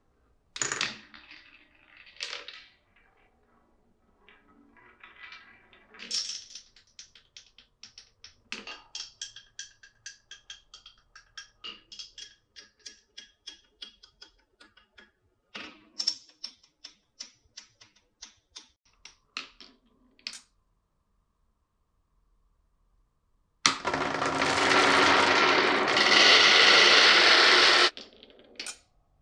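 Glass marbles clacking and rolling along a wooden marble run. First a few separate knocks, then a long run of quick ticks, about three or four a second, with a faint ringing in them; this stops and then starts again briefly. Near the end a loud rushing noise lasts about four seconds and then cuts off.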